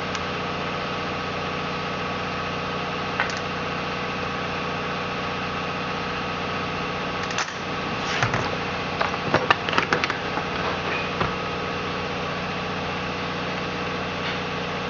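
Steady mechanical hum of several fixed tones in the background, with a cluster of light clicks and knocks about halfway through as the uncovered chainsaw is handled.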